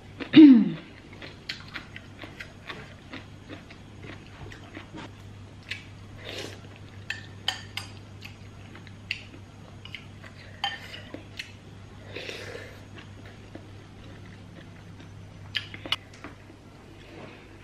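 Mealtime sounds: a metal spoon clicking against a ceramic soup bowl and plates many times, with a couple of short slurps of vegetable soup. A brief low falling sound about half a second in is the loudest thing, over a steady low hum.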